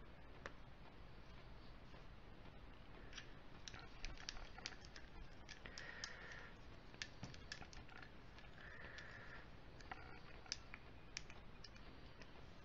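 Faint irregular clicks and taps of a thin stirring stick knocking against the inside of a small glass paint jar as model paint is stirred, with a couple of short scrapes.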